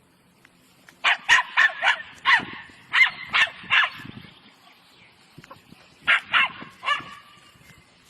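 A dog barking in quick runs of short yips: about eight in a row between one and four seconds in, then three more around six to seven seconds in.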